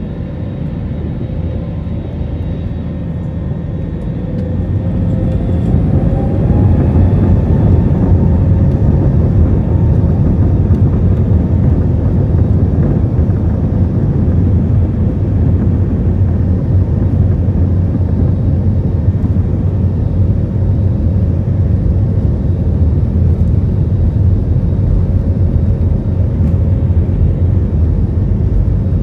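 Airbus A320-family airliner's jet engines heard from the cabin, spooling up with a rising whine about five seconds in, then running loud and steady under a low rumble and hiss as the aircraft begins its takeoff run.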